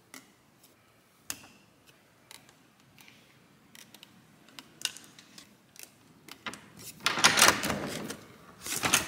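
Scattered light clicks and taps of a hotel key card against an electronic door lock and its handle, then louder rattling and handling noise about seven seconds in as the door is worked open.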